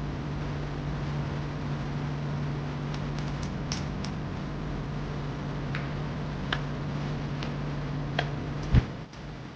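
Steady low hum with light, scattered clicks and ticks, then one sharp, louder knock near the end, after which the hum stops.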